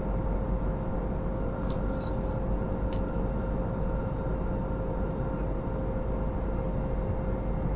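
Steady airliner cabin drone: the deep rumble and hiss of the jet engines and cabin air, with a constant hum. A few light clicks come between about one and a half and three seconds in.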